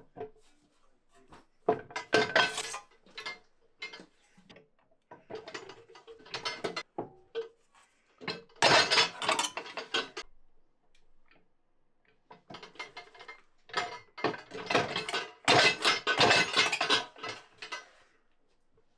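Bending press working a copper sheet: bursts of metallic clanking and rattling from the press and the sheet, in about five groups of a second or two with quiet gaps between.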